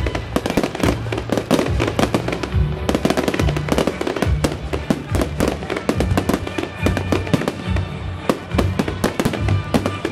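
Fireworks display: many bangs and crackles in rapid, uneven succession, with music playing under them.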